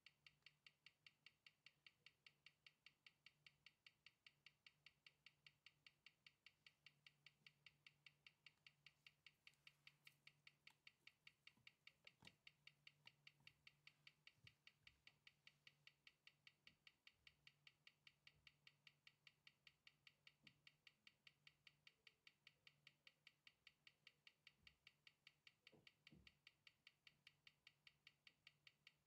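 ETA 2390 mechanical watch movement ticking on a timegrapher stand at 18,000 beats an hour, an even five ticks a second, running healthily after a service. A low steady hum lies underneath, with a faint knock about twelve seconds in and another near the end as the stand is handled.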